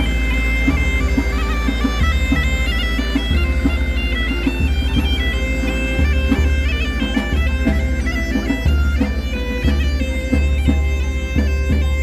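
Accordion playing a folk tune with a bass drum beating along. The melody moves in steps over low bass notes that change about once a second.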